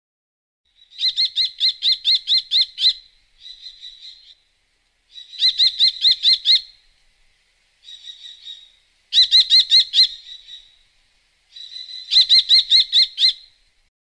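Kestrel calling in rapid, high-pitched series: four bouts of about seven sharp notes each, a few seconds apart, with softer calls between them.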